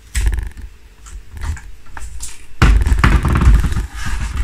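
Balsa wood stringers being trimmed with a sharp blade, a crackling, crunching sound in two bouts. The second bout, a little past halfway, is longer and louder.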